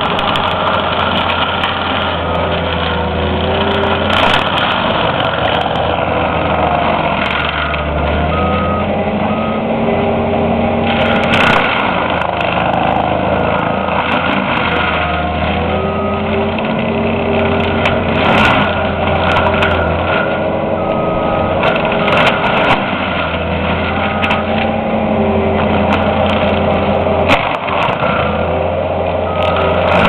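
Cat compact track loader's diesel engine running hard, its pitch rising and falling with the load as the brush cutter head shreds a tree, with sharp cracks of splintering wood. A few short backup-alarm beeps come and go.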